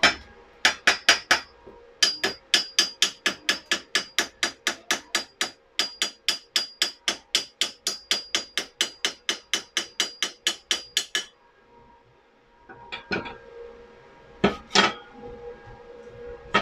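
Chipping hammer knocking slag off a freshly laid stick weld on thin 1.5 mm steel: a fast run of sharp metallic strikes, about four or five a second, that stops about 11 seconds in, followed by a few separate knocks near the end.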